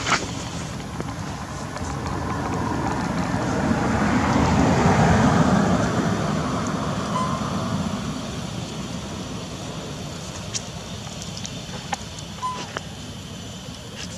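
A vehicle passing by: a broad engine-and-tyre noise swells to a peak about five seconds in and fades away over the next few seconds. A couple of short high chirps and light ticks follow near the end.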